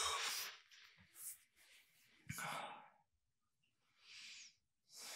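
A person's soft sighs and breaths: an exhale fading out about half a second in, then several short, faint breaths spaced a second or so apart.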